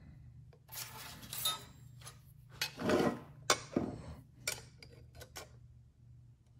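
Steel mounting bolts, spacers and nuts clinking and knocking against a brake booster's bracket as they are fitted by hand: irregular metallic clicks, with the loudest knock about three seconds in. A steady low hum runs underneath.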